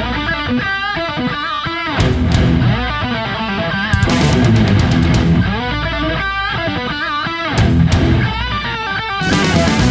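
Background music led by electric guitar with bass, in a rock or metal style, with occasional cymbal-like crashes.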